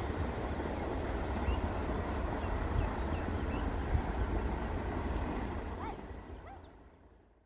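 A steady low rumble with small birds chirping high over it; the whole fades out over the last two seconds.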